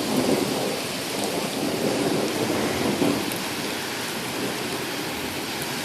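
Steady rush of water during a flash flood, with louder low rumbling surges in the first few seconds.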